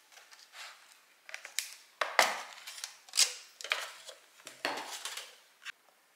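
Thin clear plastic lid of a takeaway bowl crackling and crinkling as it is pried off and handled, in a string of short bursts, loudest about two to three seconds in.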